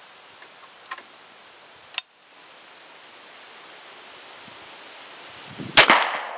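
One shot from a 20-gauge Remington rolling block single-shot shotgun, about six seconds in, sharp and loud and dying away over about a second. Before it, steady outdoor air noise with two light clicks.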